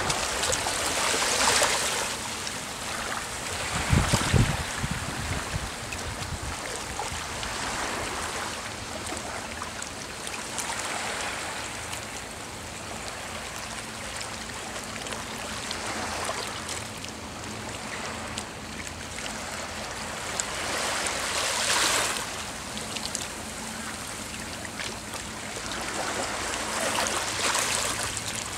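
Small waves lapping on a sandy, rocky shore, washing up and drawing back every few seconds. A brief low rumble comes about four seconds in.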